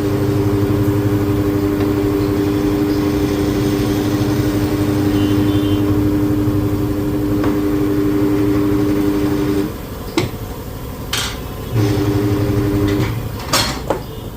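Motorized tyre changer machine running with a steady hum for about ten seconds, stopping, then running again for about a second; a few sharp metal clicks and knocks come in between and after.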